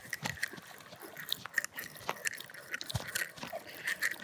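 Fishing reel being cranked while a hooked fish is brought in, giving irregular clicks and crackles.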